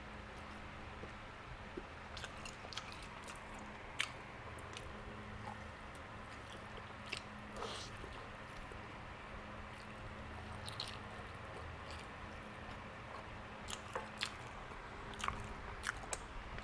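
Quiet chewing and biting of barbecued pork ribs, meat being gnawed off the bone, heard as scattered small clicks and smacks of the mouth.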